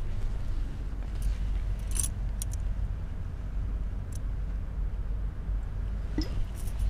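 Steady low background rumble with a few brief, light clinks and ticks about two seconds in and again near the end.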